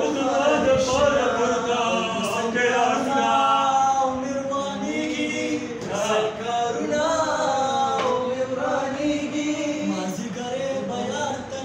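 Young men's voices singing Pashto tapay unaccompanied, with long held, wavering notes.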